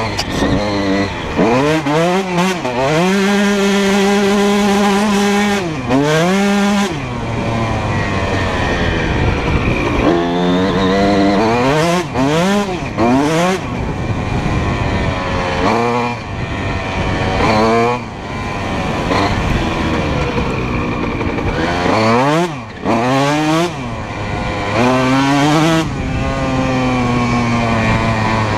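2004 Honda CR125R's 125 cc single-cylinder two-stroke engine running through a full Pro Circuit exhaust while ridden, its revs climbing and dropping again and again. The pitch holds steady for a few seconds about three seconds in, and twice in the second half the engine briefly falls off throttle before pulling again.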